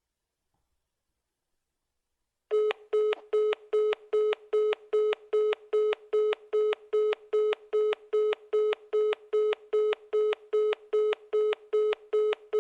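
iPhone call tone: after about two and a half seconds of silence, a fast, even series of short, identical mid-pitched beeps begins, about two and a half beeps a second.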